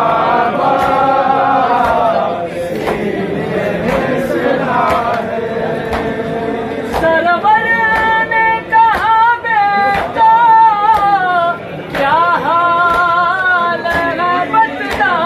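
Nauha, a Shia lament, sung by a group of male mourners together, then carried by a single male reciter alone with long, wavering, ornamented lines from about halfway through. Evenly spaced sharp slaps keep time throughout, the hand-on-chest beating (matam) of the mourners.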